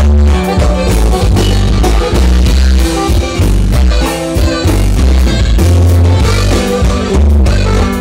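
Live norteño band music played loud, with a heavy, pulsing bass line.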